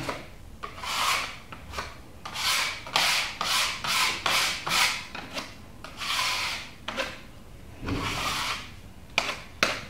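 Putty knife scraping epoxy paste along a crack in a plastered wall: a series of short scraping strokes, several in quick succession, as the excess is taken off and the filler smoothed. There are two sharp clicks near the end.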